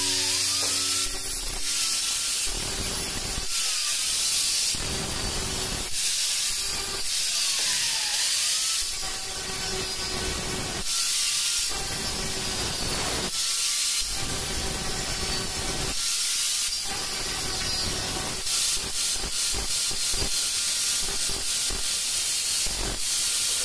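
Electric angle grinder with an abrasive disc grinding along ceramic tile edges, a steady hissing rasp in uneven passes as the disc is worked along the edge to smooth it. The motor's whine dips and recovers a few times as it is pressed in.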